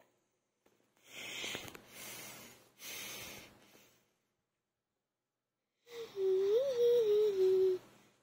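Two long breathy exhalations about a second apart, then after a pause a person humming a few held notes, starting about six seconds in.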